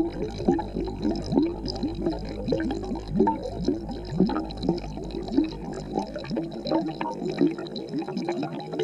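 Aquarium water bubbling and gurgling: an unbroken run of short bloops, two or three a second, over a steady low hum.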